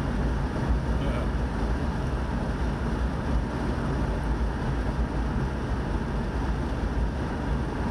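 Steady road noise of a vehicle driving at highway speed, heard from inside the cabin: an even low rumble of tyres and engine.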